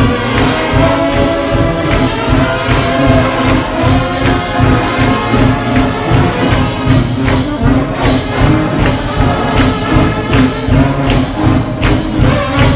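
Gospel trombone shout band playing loud held chords over a fast, steady percussion beat.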